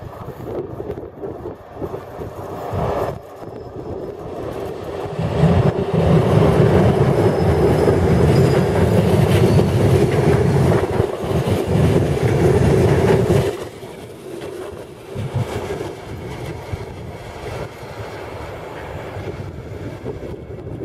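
A Serbian Railways class 441 electric locomotive and its passenger coaches pass close by at speed. The rumble of wheels on rails swells about five seconds in and stays loud while the coaches go by. About thirteen seconds in it drops off suddenly, leaving a lower rumble as the train moves away.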